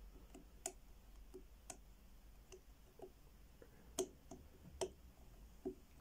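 Faint, irregular clicking of a combination padlock's dial wheels being turned notch by notch, an Abus Super Code 158/50 being decoded by feeling for each wheel's low point with a decoding knife. About a dozen small clicks, the loudest two near the middle.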